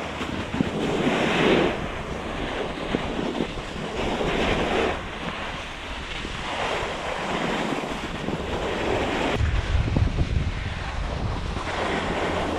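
Wind rushing over the microphone and a snowscoot's boards hissing over groomed snow during a downhill run, the hiss swelling and fading every second or two. A deep wind rumble sets in near the end.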